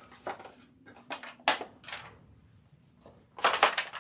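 An exhaust gasket and its packaging being handled: a few sharp rustles and clicks, then a denser run of rustling and clicking about three and a half seconds in.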